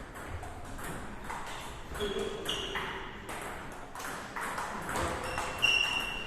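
Table tennis ball clicking off bats and tables in quick irregular hits during play, with short high squeaks about two and a half seconds in and near the end.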